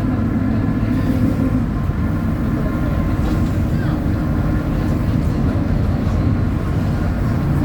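Mercedes-Benz OF-1722M bus's diesel engine running steadily at high revs, heard on board, with a steady whine over it from a growling differential.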